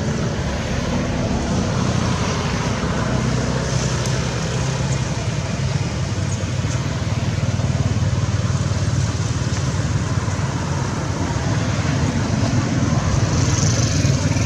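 Motor vehicle engine running steadily with road traffic noise, a low steady hum that grows slightly louder.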